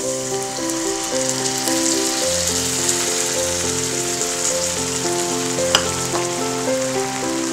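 Shrimp stock hitting a hot wok of pan-fried tofu, sizzling steadily as it comes up to a simmer, under soft background music with held notes. One sharp click about three quarters of the way through.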